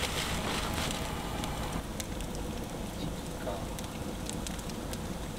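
Pine firewood burning in a hand-built earthen kiln, crackling with scattered sharp pops over a steady hiss.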